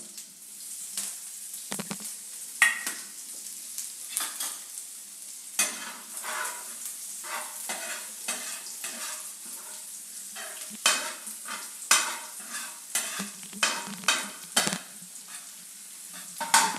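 Chopped green garlic, green chillies, ginger and green turmeric sizzling in hot oil while being stirred, with the spoon scraping and knocking against the pan at irregular moments.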